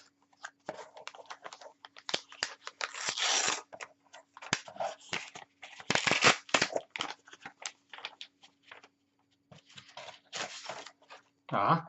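Paper rustling and crinkling in irregular bursts as sheets of paperwork are handled and unfolded.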